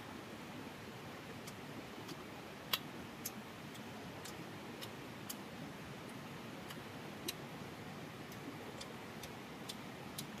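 Wood fire crackling: scattered sharp pops and clicks at an uneven pace, one standing out about a third of the way in, over a steady rushing background.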